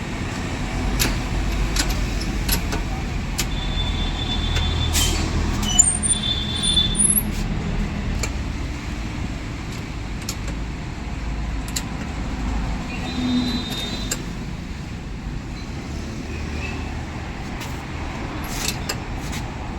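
Road traffic going by: a steady low rumble with scattered clicks and knocks and a few brief high-pitched tones.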